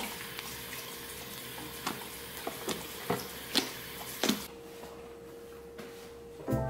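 Thick slime being poked and squished by fingers, crackling finely with about six sharp little pops as air pockets burst; the crackle fades out after about four seconds.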